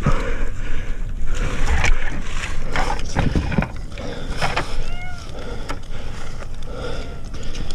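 A cat meowing in short arching cries, a few times about five seconds in and near the end, over rustling and knocks from the tree.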